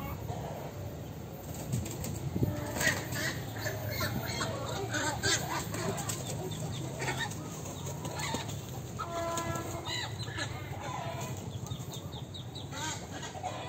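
Chickens clucking and flapping their wings in many short, scratchy bursts, with one longer held call about nine seconds in, over a steady low hum.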